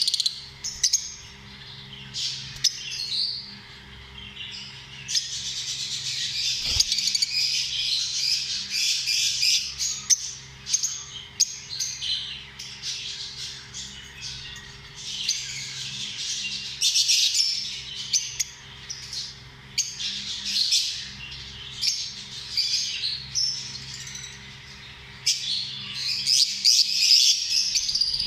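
Lovebirds chattering: a dense stream of rapid, shrill chirps and squawks from several birds, swelling into louder spells now and then.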